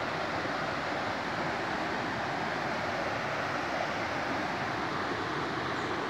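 Small river waterfall: water pouring steadily over a low rocky ledge, an even, unbroken rush.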